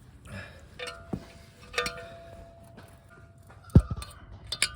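Metal clinks and taps of tools and hardware on a steel post foot being bolted down. Several of the strikes ring on with a clear tone, and a heavy thud comes a little before the end.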